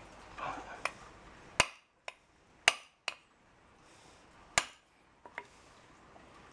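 A hammer striking a hole punch through a rubber mud flap resting on a wooden board: three hard, sharp blows spread over a few seconds, with a few lighter taps between them.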